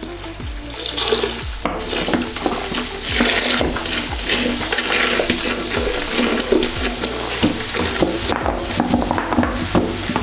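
Coca-Cola pouring from a plastic bottle into a toilet bowl full of water beads, splashing and fizzing as it foams up, over background music.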